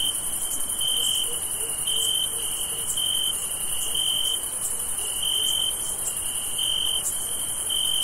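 Night chorus of crickets: a continuous high-pitched shrill from many insects, with a nearer cricket trilling in short bursts about once a second.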